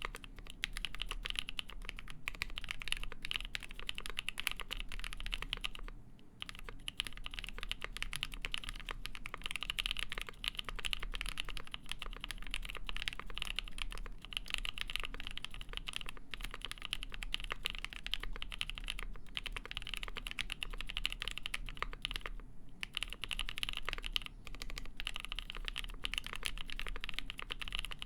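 Steady, fast typing on a Polaris mechanical keyboard with lubed NK Cream linear switches, a polycarbonate plate and GMK keycaps: a dense run of key clacks, with short pauses about six seconds in and again about three-quarters of the way through.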